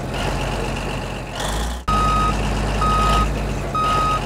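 Vehicle engine running with a steady low hum; about two seconds in a reversing alarm starts, beeping three times at about one beep a second, each beep about half a second long.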